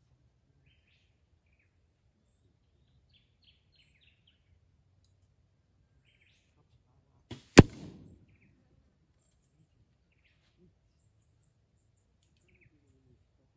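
An arrow striking a cardboard target boss close by: one sharp hit about halfway through, with a faint click just before it and a brief rattle after. Faint birdsong in the background.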